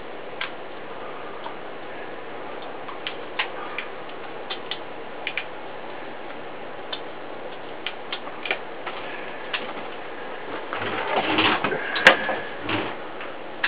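Scattered light clicks and taps as a soldering iron tip and a hand tool touch the solar cells' tab wires, over a steady background hiss. About eleven seconds in comes a short burst of rustling and handling with one sharp click.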